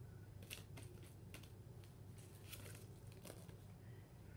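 Faint clicks and rustles of trading cards being handled and flicked through, over a low steady hum.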